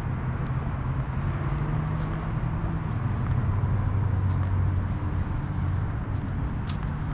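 A steady low mechanical drone over an outdoor hum; its pitch dips lower in the middle and rises again near the end. A few faint light ticks sound over it.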